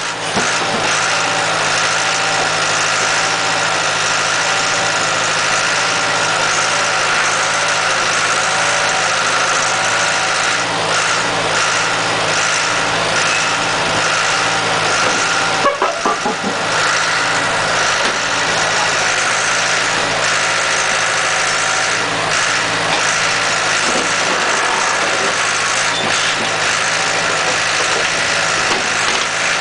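Horizontal mobile scrap baler's engine running steadily, with a brief knock about sixteen seconds in.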